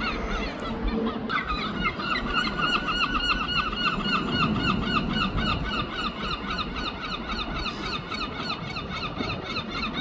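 Herring gulls calling to each other in a fast, unbroken run of short, repeated squealing notes. The calling breaks off for about a second near the start, then resumes.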